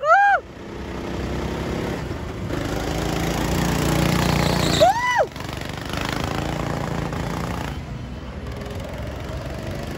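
Go-kart engines running as karts lap the track, a steady small-engine drone that swells around the middle. Two short high squeals rise and fall, one at the very start and one about five seconds in.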